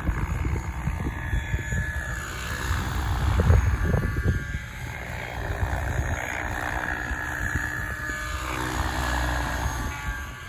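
Electric SAB Kraken 700 RC helicopter with 690 mm main blades in flight: the rotor blades and motor whine together, the pitch falling and rising again twice as it manoeuvres.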